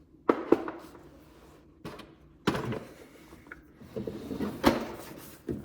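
A series of sharp knocks and clunks, about seven at irregular spacing, the loudest two just after the start, typical of tools or parts being handled and set down.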